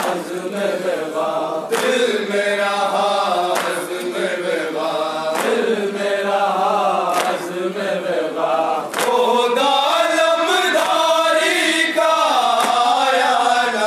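A group of men chanting a Shia nauha lament in unison at microphones, in a slow sung line. A sharp slap of chest-beating (matam) keeps time about every two seconds.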